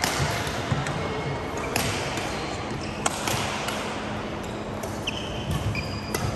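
Badminton rally: sharp racket strikes on the shuttlecock at irregular intervals, with shoes squeaking on the court mat near the end.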